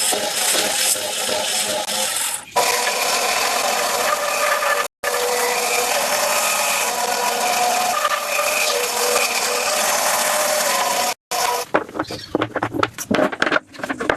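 Woodworking tools cutting and rubbing on wood in a string of short edited clips, a dense scraping noise. Near the end come a run of sharp knocks.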